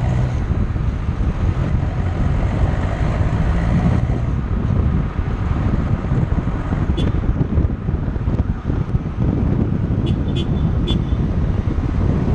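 Wind buffeting a camera mounted low beside a moving car's front wheel, over tyre and road noise, with the drone of the remapped Ford Aspire's diesel engine underneath, clearest in the first few seconds. A short high tone sounds about seven seconds in, and three more come around ten seconds in.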